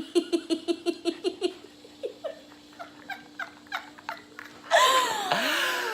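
A person laughing in a quick staccato run of short pulses, then a few soft clicks, and near the end a loud noisy burst with a swooping pitch.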